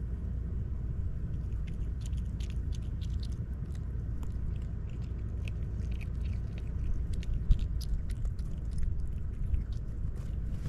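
Pine marten chewing and crunching peanuts, a quick, irregular run of small crisp clicks over a steady low rumble, with one louder knock about seven and a half seconds in.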